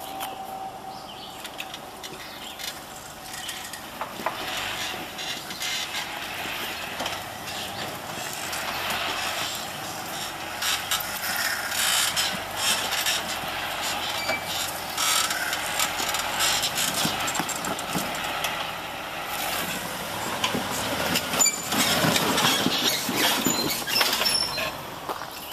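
Off-road 4x4 working over a rocky trail: mechanical creaking, clanking and clattering over a steady noisy background, busiest and loudest near the end.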